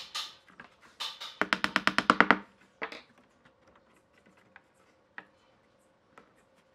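Thin wooden strips clacking against each other and the tabletop as hands spread and press the fanned strips. About a second and a half in comes a quick run of about ten clacks, then a single click and a few faint taps.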